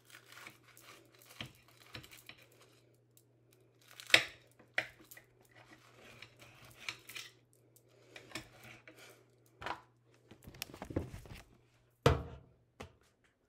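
Kitchen knife sawing through a sandwich of bread, spinach and sliced vegetables: a string of crisp scrapes, crunches and small clicks against the plate. There is a sharper knock about four seconds in and a thump near the end.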